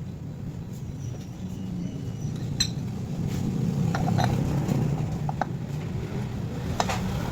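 Metal tools and parts clinking and clicking a few times, over a steady low motor rumble.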